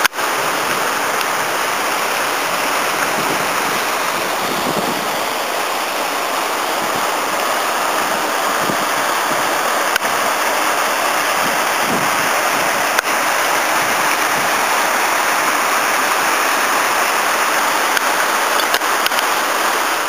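Water of the Bagnolo torrent cascading down a small rocky waterfall: a steady, unbroken rush.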